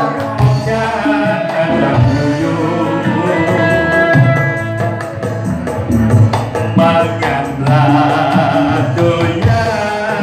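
A man singing into a microphone through a loudspeaker over upbeat dance music with a steady drum beat.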